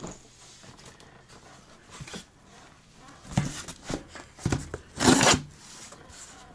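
Cardboard shipping box being handled and set down: a few knocks and rubs from about three seconds in, the loudest a short scraping rush about five seconds in.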